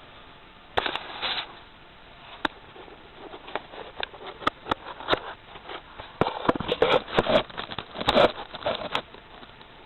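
Irregular clicks, taps and short rattles of handling, denser in the second half and stopping about a second before the end; no engine is running.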